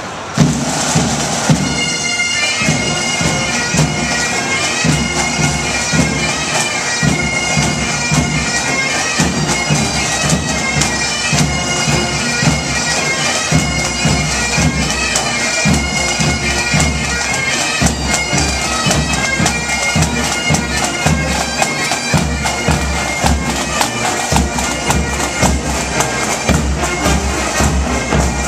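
Pipe band of Highland bagpipes playing a march with a steady drumbeat, starting suddenly just after the opening.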